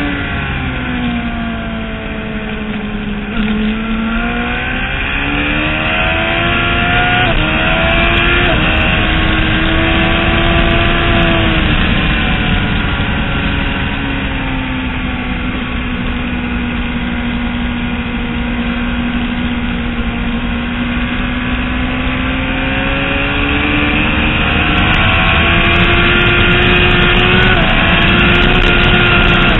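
Motorcycle engine, heard from on the bike at track speed. Its pitch falls and climbs with the throttle, with sudden steps in pitch at gear changes and a long slow sag and rise in the middle.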